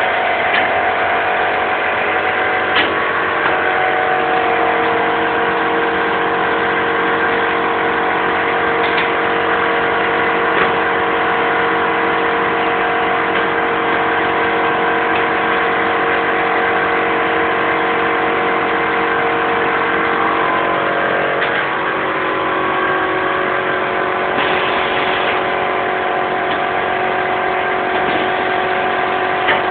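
Semi-automatic shrink-wrap packaging machine running: a steady mechanical hum with several held tones and a few short clicks. About two thirds of the way through, the pitch of the hum shifts slightly.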